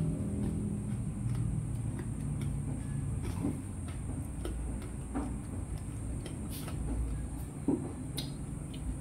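Someone chewing crunchy deep-fried pork knuckle skin, a scatter of short, irregular crackles. Under it runs a steady low rumble.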